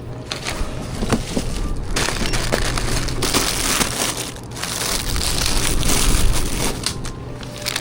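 Plastic shopping bag and packaging crinkling and rustling, in two long stretches with a short lull between, as groceries are handled and bagged.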